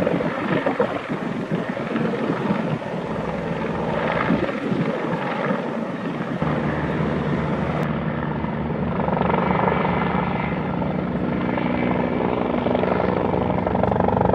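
Bell 412 twin-engine, four-bladed utility helicopter flying overhead: steady rotor and turbine noise. The sound changes abruptly about eight seconds in, and a steadier set of pitched tones holds from then on.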